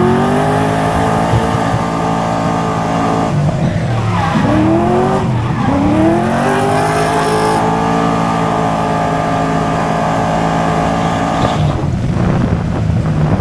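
Drift car engine at full revs through a drift: the pitch climbs and then holds high and steady, drops and climbs again twice in quick succession around four to five seconds in, holds high again, and falls away near the end. Tyres squeal underneath.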